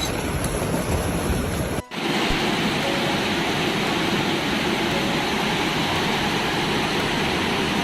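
Floodwater rushing in a steady, loud roar, broken by a short drop about two seconds in before the rushing resumes.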